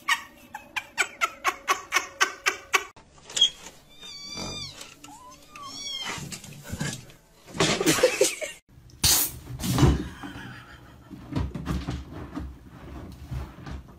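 Cat meowing: short calls that bend down in pitch, after a run of quick rhythmic pulses at the start. Irregular bumps and rustles fill the second half.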